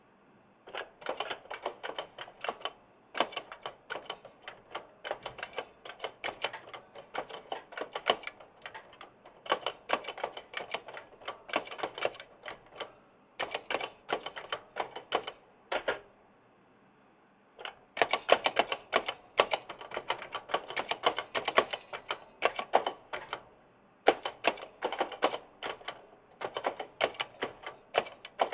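Typing on a giant mechanical keyboard with Kailh Blue clicky switches: rapid runs of sharp key clicks with spring noise, broken by brief pauses and a two-second stop about sixteen seconds in.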